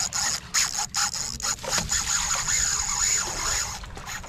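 Drag of a Daiwa Lexa TW SW 400H baitcasting reel screaming, a steady high-pitched whir as a hooked yellowfin tuna pulls line off, stopping shortly before the end.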